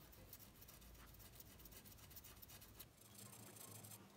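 Near silence with faint scratching and light ticks as hands handle and rub a tennis racket frame.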